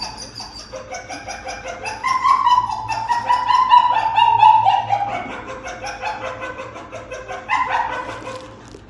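Dog whining in a high, wavering cry almost without a break, louder in the middle, with a sharper cry near the end before it trails off. It is the eager whine of a dog wanting treats.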